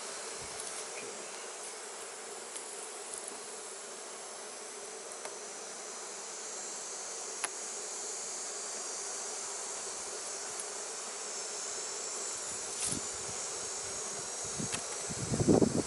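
Honeybees buzzing steadily around an open hive, a colony stirred up by smoke. Near the end come a few knocks and clatters.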